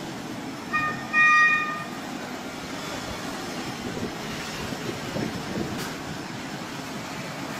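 Diesel locomotive's horn sounding a short toot and then a louder, longer blast about a second in, followed by the steady rumble of the locomotive and its passenger coaches rolling across a street level crossing.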